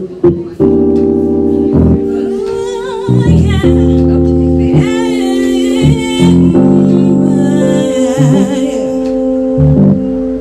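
Live electronic keyboard playing held chords while a woman sings into a microphone over the PA, her voice wavering through the middle of the stretch.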